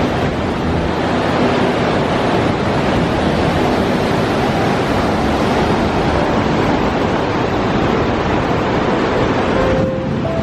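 Naena Falls, a large waterfall, roaring: a loud, steady rush of falling water. The hiss thins out just before the end.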